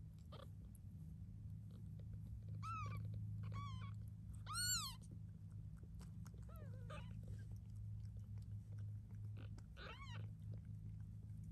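Newborn kittens mewing: about six short, high, squeaky mews, each rising then falling in pitch, the loudest near the middle, over a steady low hum.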